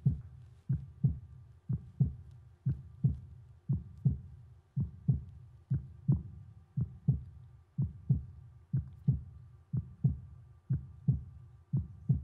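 Heartbeat sound effect: a low double thump, lub-dub, repeating about once a second and keeping an even beat, with a faint steady tone underneath.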